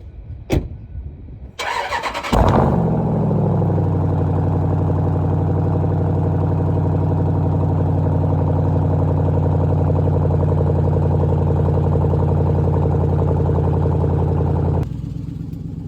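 Jeep SRT8's straight-piped Hemi V8 cranking for about a second, firing with a loud flare and settling into a steady idle. About a second before the end the sound drops suddenly to a quieter idle.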